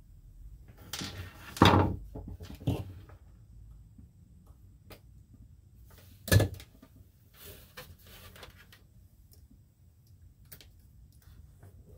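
Knocks and thumps from things being handled, with a loud thump about a second and a half in, a second loud one about halfway through, and lighter clicks and rustling between and after.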